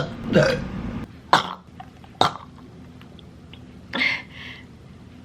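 A woman burping and clearing her throat in several short, separate bursts.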